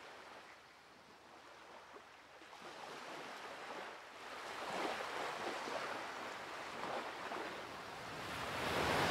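Ocean surf washing in under a pier, a rushing noise that swells in surges and grows louder toward the end.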